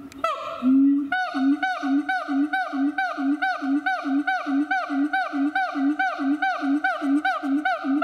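A siamang calling with its throat sac inflated. One long note comes first, and from about a second in it gives a rapid run of short repeated notes, about three a second, each one bending in pitch.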